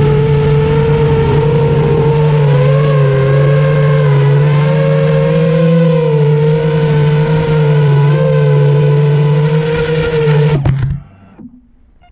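Small multirotor (FPV-style) drone's motors and propellers buzzing steadily, the pitch wavering slightly with throttle, then cutting out abruptly near the end as the drone lands on the snow.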